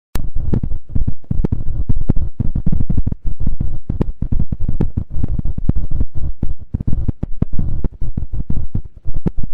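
A buzzing 'za-za' noise made of dense, irregular clicks, heaviest in the low end, starting and stopping abruptly. It is the background noise of a strange Morse-code-like signal that sounded from a refrigerator.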